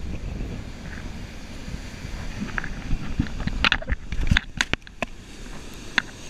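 Wind buffeting the camera microphone as a steady low rumble. A cluster of sharp knocks and clicks comes a little past halfway, handling noise as the camera is moved.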